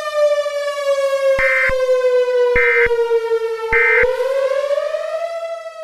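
Civil defense warning siren sounding one long tone that sinks slowly in pitch, then rises again and fades near the end. Three short digital data bursts about a second apart sound over it, typical of an Emergency Alert System end-of-message signal.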